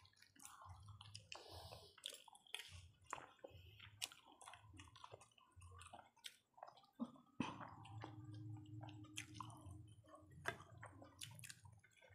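Faint close-miked chewing and wet mouth sounds of people eating rice and boiled egg by hand, with small clicks and squelches from fingers working the food.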